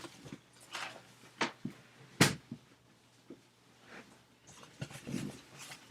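Light handling noise: a few scattered short clicks and knocks, the sharpest about two seconds in.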